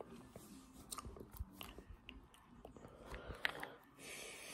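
Faint scattered clicks and small crackles, then a short soft rustle about four seconds in as a hand brushes over the phone recording.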